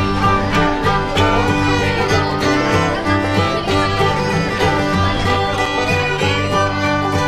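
Background music in a bluegrass style, led by fiddle with banjo and guitar, playing steadily with a regular bass beat.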